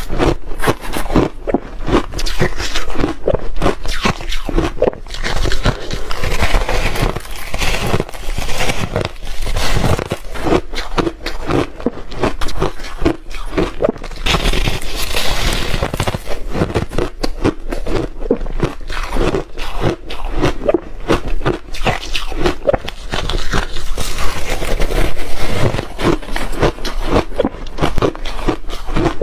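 Refrozen shaved ice being bitten and chewed close to the microphone: a continuous run of crisp crunches, several a second.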